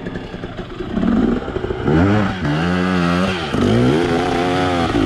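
Enduro motorcycle engine revving up and down under throttle as the bike climbs a steep slope, getting louder about two seconds in as it comes close.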